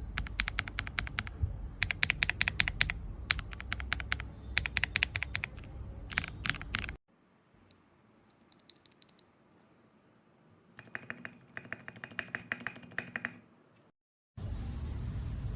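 Typing on a mechanical keyboard fitted with Gateron Pro 2.0-type switches: quick runs of key clacks in bursts of about a second with short pauses. About halfway through the sound drops to a much quieter recording with a few scattered clicks, then another burst of typing.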